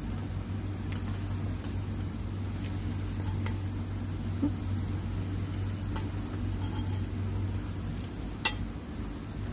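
Metal spoon and fork clinking lightly against a plate while eating, a few scattered clicks with the sharpest about eight and a half seconds in, over a steady low hum.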